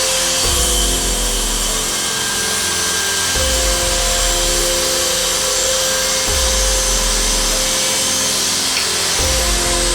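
Makita M5801 electric circular saw running steadily and cutting wood, under background music whose low beat pattern repeats about every three seconds.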